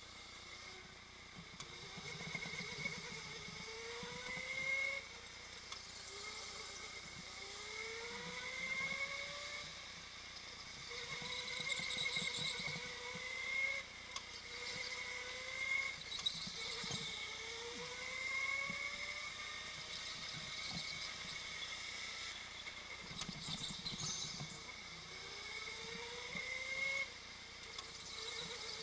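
Go-kart motor whining as the kart laps a track, its pitch climbing over a second or two as it accelerates out of each corner and then dropping back, again and again about every two seconds, over tyre and air noise.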